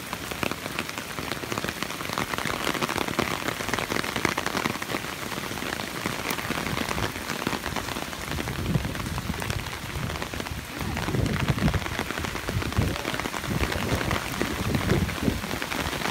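Steady rain falling on soaked ground and standing floodwater, a dense hiss of drops with no break. Low rumbles come and go in the second half.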